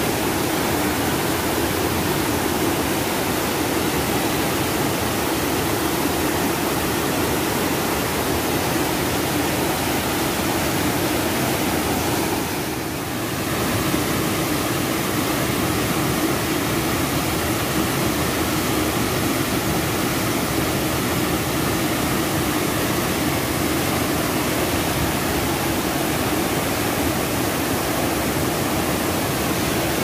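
Waterfall plunging onto rocks and into its pool: a steady, loud rush of falling water that dips briefly about halfway through.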